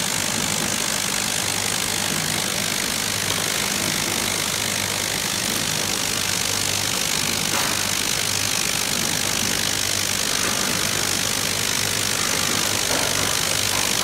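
Capsule counting machine running steadily: a low electric motor hum under a continuous hiss of capsules sliding and tumbling over the turning stainless-steel counter plate.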